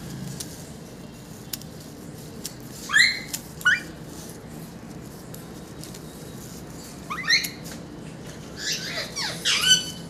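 Young African grey parrot squawking in fright while held for a wing clip. Two short rising squawks come about three seconds in, another around seven seconds, and a quick run of them near the end.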